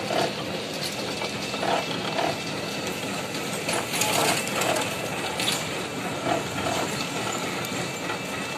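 Motor-driven sugarcane juice press running, with a steady hum under an uneven mechanical clatter.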